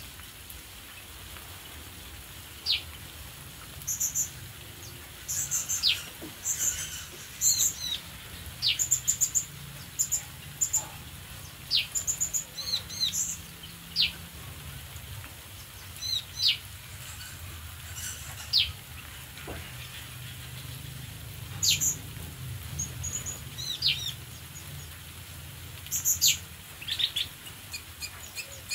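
Several small aviary birds calling: short, sharp downward-sliding notes and quick runs of high chirps, scattered irregularly, sometimes overlapping.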